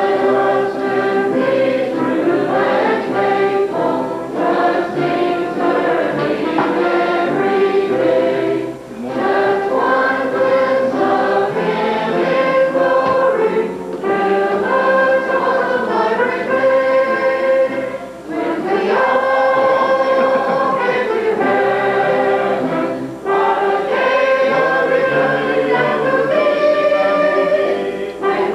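Church congregation and choir singing a hymn together, voices held in long phrases with brief breaths between lines.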